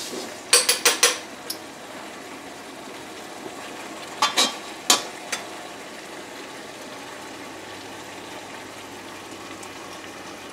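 A metal spoon clinking against a skillet as sauce is scooped: a quick run of four clinks about half a second in, then three more around four to five seconds in. Under them runs the steady low sizzle of a thick sauce simmering in the pan.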